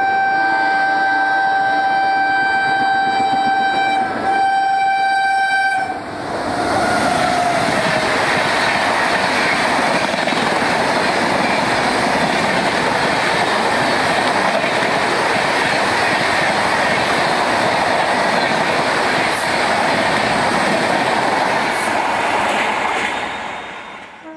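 WAP-7 electric locomotive of the Ispat Express sounding a long horn blast, broken briefly about four seconds in. About six seconds in the train reaches the platform and rushes through at high speed, wheels clattering on the rails, until the sound fades away near the end.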